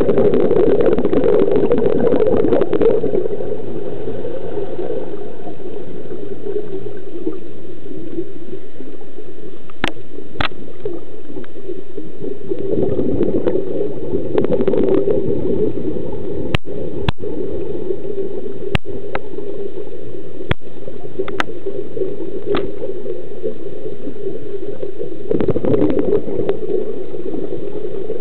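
Scuba diver's exhaled bubbles heard through an underwater camera housing, in three bursts about twelve seconds apart over a steady muffled rush of water. A few sharp clicks sound between the second and third bursts.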